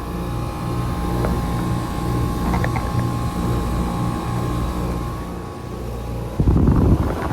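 1994 Rheem Imperial Classic XII air conditioner running steadily: a pulsing low hum with a steady high whine over it. About six and a half seconds in, a brief loud low rumble cuts across it, like wind or a knock on the microphone.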